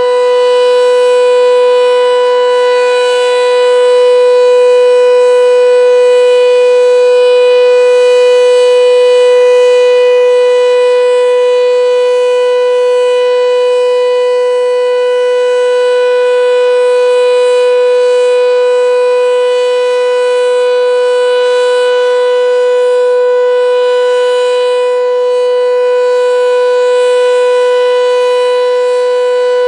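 Sentry 7V8-B outdoor warning siren sounding the steady alert signal: one loud tone held at a constant pitch with a stack of overtones, swelling and easing only slightly in loudness.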